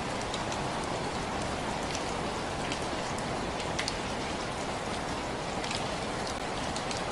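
Steady rain falling, a constant even hiss with scattered individual drops ticking sharply over it.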